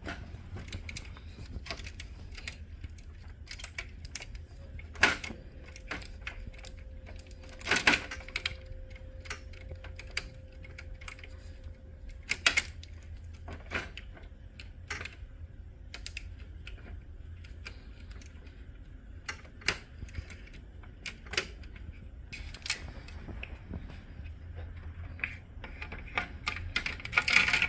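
Irregular sharp clicks and taps of plastic printer parts and cabling being handled and snapped into place during reassembly, over a low steady hum, with a cluster of louder clicks near the end.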